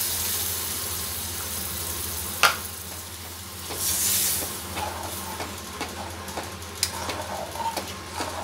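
Tamarind water sizzling in a hot pan of fried ginger-spice paste. The sizzle dies away, there is one sharp knock, a second short sizzle near the middle, then a metal spoon clinks and scrapes against the pan as the curry is stirred.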